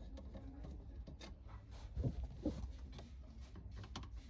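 Scattered small clicks and light knocks of hand and tool work on a car's dashboard trim during radio removal, with a couple of duller thumps about two seconds in.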